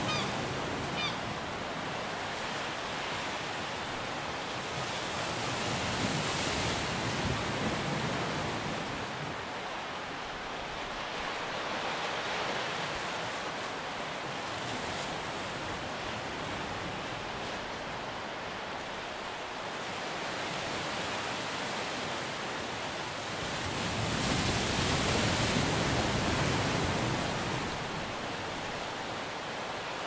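Sea surf with a steady rush of breaking waves and wind buffeting the microphone. The rush swells louder about six seconds in and again near the end.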